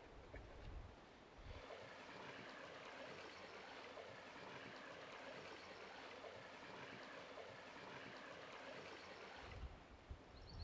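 Faint, steady rushing noise with no tone in it, like running water, that starts abruptly about a second and a half in and cuts off about a second before the end.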